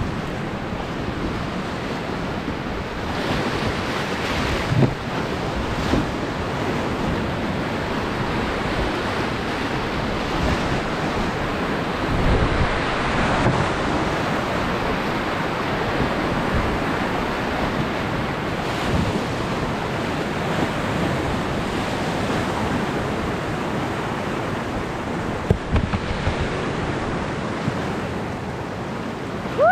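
Fast-flowing river water rushing and churning around an inflatable raft, with wind buffeting the microphone and a few light knocks.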